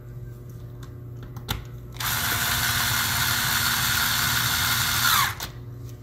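Small cordless electric screwdriver running for about three seconds, driving a battery-compartment screw into a laptop's base, with a falling pitch just before it stops. A short click comes about a second and a half in, just before it starts.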